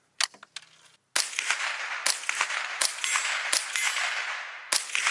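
Remington 597 .22 rifle firing a quick string of semi-automatic shots, about two or three a second, each a sharp crack over a lingering echo. A few light handling clicks from the rifle come just before the first shot, which lands about a second in.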